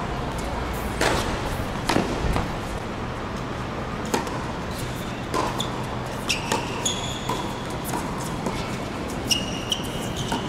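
Tennis rally on a hard court: sharp pops of the ball off rackets and the court, coming irregularly about a second apart. Several short high squeaks of tennis shoes on the court surface come in the second half.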